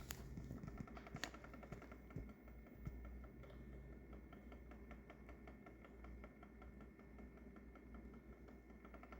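Near silence: a Sony Video 8 camcorder's tape transport running in playback, with faint rapid mechanical ticking over a low hum and a couple of soft clicks in the first second or so.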